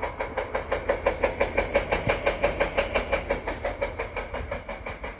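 Construction-site machinery hammering in a fast, even rhythm of about seven strokes a second over a low rumble, a little quieter near the end.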